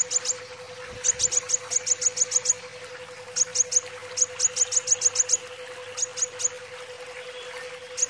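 Brown-throated sunbird (kolibri wulung) singing: rapid runs of sharp, very high chirps, several to a run, broken by short pauses.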